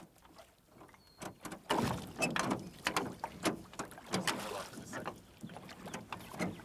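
Rowboat being rowed with wooden oars: a string of irregular knocks and splashes from the oars working in the oarlocks and the water.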